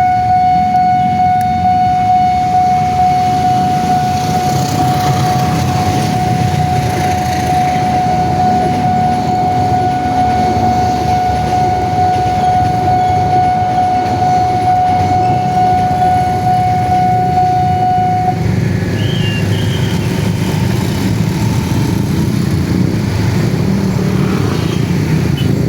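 Railway level-crossing alarm sounding one steady, unbroken electronic tone, which cuts off abruptly about 18 seconds in. A low rumble of passing vehicles runs underneath throughout.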